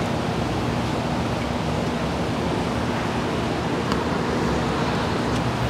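Steady loud rushing noise with a constant low hum, from workshop machinery or ventilation running, with a couple of faint metallic clicks about four and five seconds in.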